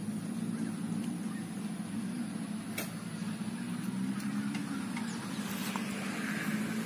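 Small motor scooter engine idling steadily with a low, even rumble, and a single sharp click a little under three seconds in.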